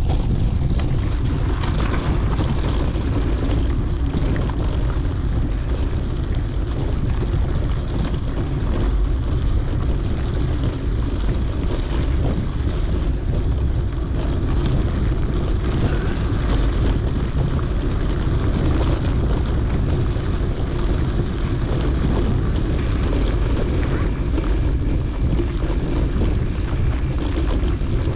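Wind buffeting the action camera's microphone while a mountain bike rolls along a dirt road, with steady tyre rumble and scattered small rattles and knocks from the bike over rough ground.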